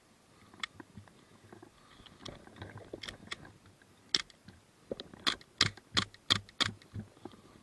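A quick run of sharp clicks or snaps, about six in under three seconds, starting about four seconds in, with fainter ticks before them.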